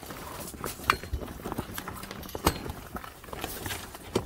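Metal wire hooks of the canopy's tie bands clicking and clinking against the steel frame pole as they are hooked on, a few sharp clicks about a second and a half apart.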